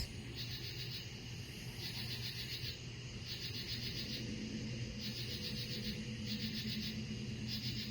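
Crickets chirping in short pulsed trills, about one a second, over a faint steady low hum.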